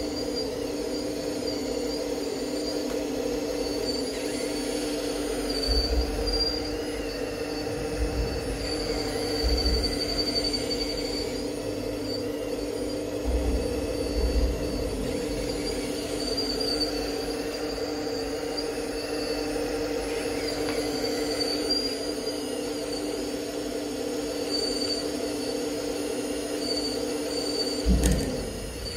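Radio-controlled Liebherr 954 model excavator working, its motor and hydraulic pump giving a steady hum with a high whine over it and occasional low thumps. The lower part of the hum cuts off with a thump about a second before the end.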